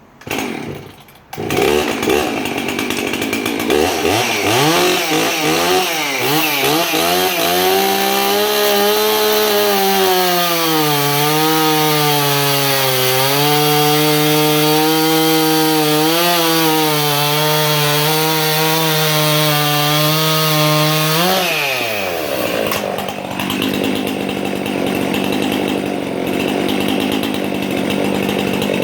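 Tuned Husqvarna 266 XP two-stroke chainsaw with a 32-inch bar cutting wood: the engine pitch wavers as it goes into the cut, then holds lower under load with small dips. About 21 seconds in it revs up sharply as the chain comes free, and it keeps running after that.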